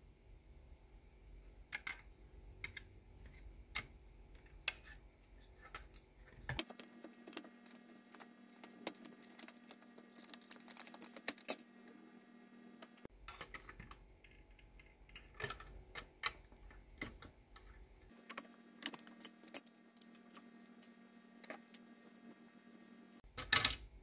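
Scattered light clicks and taps of small parts being handled, with a steady low hum in two stretches and a louder clatter near the end.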